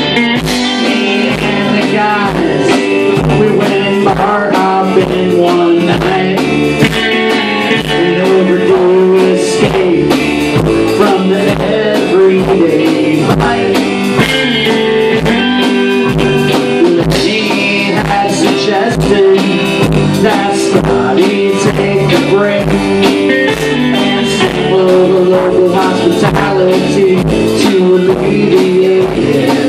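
A live rock band playing a blues-rock tune on electric guitars and drum kit, with a steady drum beat.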